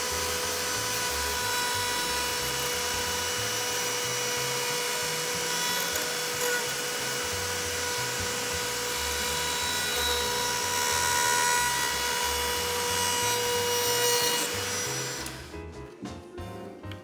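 Handheld Dremel-style rotary tool running at high speed with a steady whine, its bit grinding away the edge of a composite panel. The tool cuts off about 15 seconds in, and background music with a steady beat runs underneath throughout.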